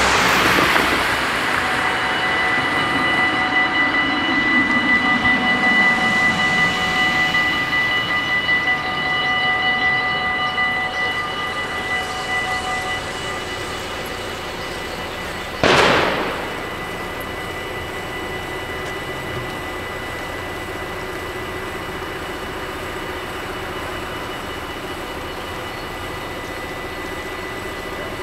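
Mechanical level-crossing bells ringing steadily, loudest over the first dozen seconds and fainter after about 13 seconds, with a car driving across and away at the start. A single sharp thump comes about 16 seconds in.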